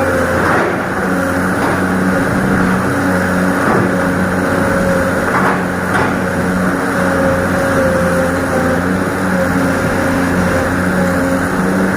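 Excavator's diesel engine running steadily under load while digging, with a few brief knocks from the work.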